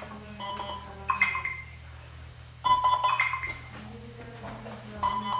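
DJI RoboMaster S1 robot beeping three times, each beep a short low tone stepping up to a higher one. Each beep confirms that a Mecanum wheel turned by hand has been identified during motor calibration.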